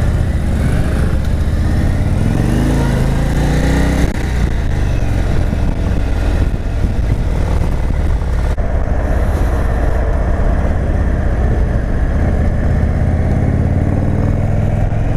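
Indian Super Chief Limited's Thunderstroke 116 air-cooled V-twin pulling away under throttle. Its pitch rises over the first few seconds, drops at a gear change about four seconds in, and then it runs steadily at road speed.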